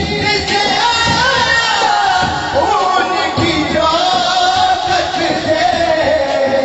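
Male voice singing a devotional naat into a microphone, amplified through a public-address system, over music with a drum beat.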